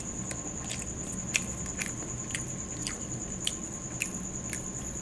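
Chewing crunchy fried chicken: short sharp crunches about every half second. Behind them a cricket chirps in a steady high trill.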